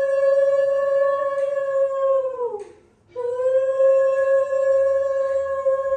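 Conch shell (shankha) blown in two long, steady blasts, each sliding down in pitch as it dies away, with a short breath between them about two and a half seconds in. It is sounded as part of the puja worship.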